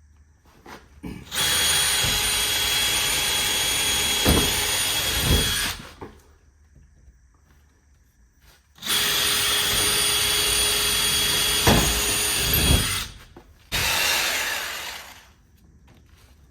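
Handheld power tool running in two long bursts of a few seconds each, then a shorter one that winds down near the end, cutting out an opening traced for an outdoor GFCI receptacle box. A few louder knocks come during the cuts.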